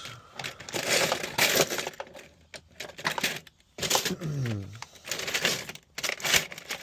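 Irregular clicks, knocks and clatter of small metal tools and lock parts being picked up and handled, with a short falling vocal sound about four seconds in.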